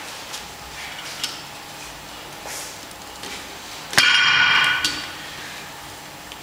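Iron weight plates on a loaded Rolling Thunder grip handle clanking once, about four seconds in, as the handle is lifted off the floor, ringing for about a second. A few faint metal ticks before it.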